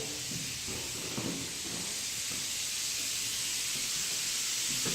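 Steady, even hiss with faint low handling rumbles underneath.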